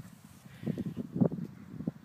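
Hoofbeats of horses cantering away on a gravel gallop track: an irregular run of dull thuds that starts about half a second in.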